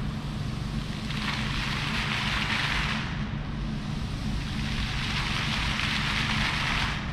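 Outdoor city-street background noise: a steady hiss that swells and fades every couple of seconds over a low, steady hum.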